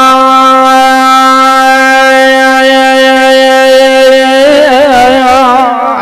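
A man's voice chanting an Arabic elegy holds one long, steady sung note, then breaks into a wavering, ornamented run about four and a half seconds in.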